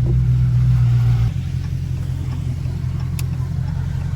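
Dodge Scat Pack's 6.4-litre HEMI V8 droning steadily while driving, then dropping suddenly to a lower level a little over a second in as the throttle eases off. A single short tick about three seconds in.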